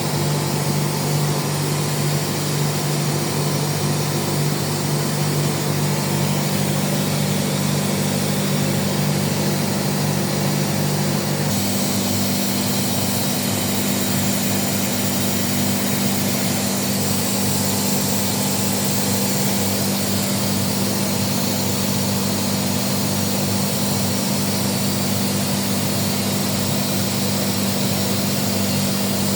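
Airhorse AHB20A oil-injected screw air compressor running steadily with a loud hum, its pitch stepping up about a third of the way in.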